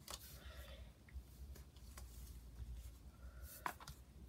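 Faint clicks and light rustling of small plastic S.H.Figuarts action-figure parts being handled and set down, with one sharper click near the end.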